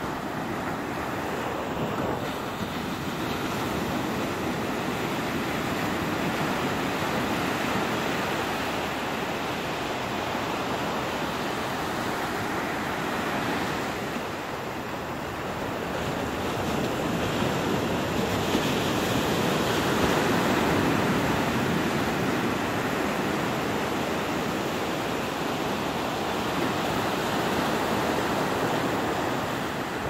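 Sea surf breaking and washing up a sandy beach: a steady rushing wash that swells louder about two-thirds of the way through.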